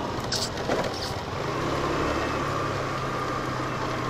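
Motor scooter engine running steadily under way, a low even hum over road and wind noise. Two brief clicks come within the first second.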